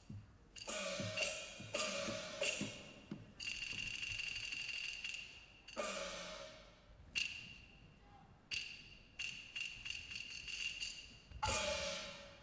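Chinese opera percussion ensemble of gongs, cymbals and wooden clappers striking quick runs of sharp beats, with a metallic ringing that hangs between the strikes. The heaviest crash comes near the end.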